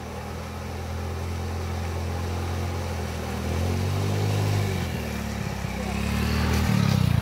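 A motor vehicle's engine running while it drives through water on a flooded road. The engine is steady at first, then its pitch rises and falls a couple of times and it grows louder near the end.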